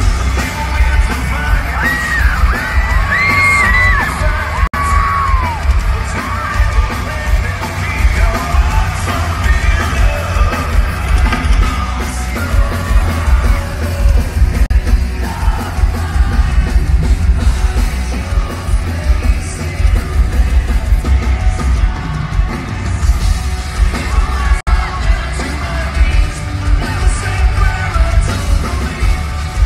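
Live hard rock band playing loud, with electric guitars, pounding drums and heavy bass, and yelled and sung vocals over the music.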